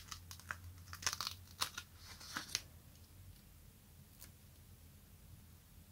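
A transparent sticker being peeled by hand off its sticker sheet: a run of small crackles and ticks over the first two or three seconds, and one more tick about four seconds in.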